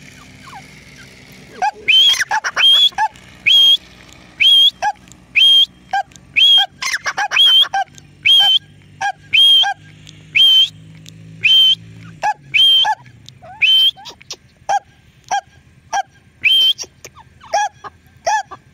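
Grey francolin calling loudly: a long run of shrill, evenly repeated calls, about two a second, starting a couple of seconds in.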